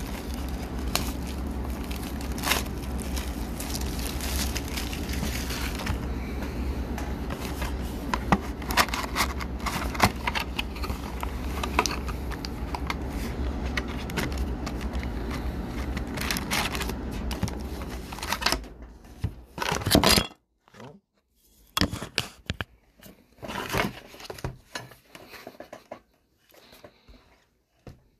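Foil trading-card packs crinkling and scraping as a hand sorts through them in a cardboard box, in many short irregular rustles and clicks. A steady low background hum runs under them and cuts out about two-thirds of the way through, leaving only the scattered rustles.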